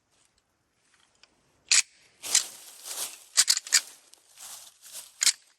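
Rattling antlers clashed and ground together to imitate two bucks fighting, a call to bring a buck in. A sharp clack comes about two seconds in, then a run of clacks and grinding scrapes, with a last sharp clack near the end.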